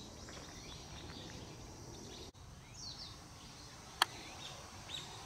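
Outdoor woodland ambience with birds giving short, high, downward-sweeping chirps now and then. A single sharp click about four seconds in is the loudest sound.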